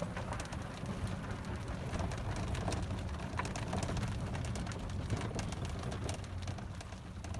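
A vehicle moving slowly along a rough path: a steady low hum with constant small rattles and clicks from the body and tyres.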